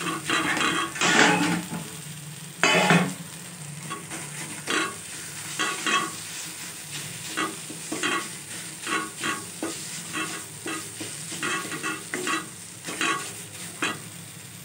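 Wooden spatula scraping and pressing cooked greens against a metal kadhai in repeated strokes, mashing the saag, with the pan sizzling underneath. Two louder scrapes come in the first three seconds, then quicker, lighter strokes follow at about two a second.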